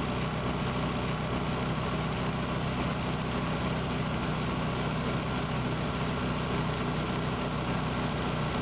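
Small outboard motor running steadily at cruising speed, pushing a square-stern canoe, with a steady low drone and the rush of spray and wake behind the boat.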